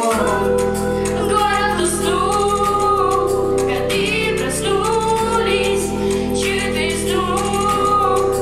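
Pop song with young female voices singing into microphones over a backing track; a deep bass part comes in right at the start.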